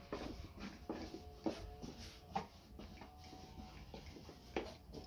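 Long, thin wooden rolling pin rolling out dough on a wooden board: irregular soft knocks and clicks of the pin against the board, a few of them sharper.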